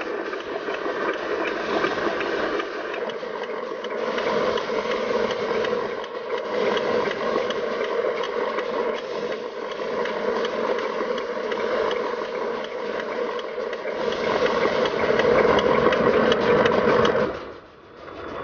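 RC 8x4 Scania recovery truck running with a steady, fast mechanical rattle and whir. It gets louder late on, then drops away sharply just before the end.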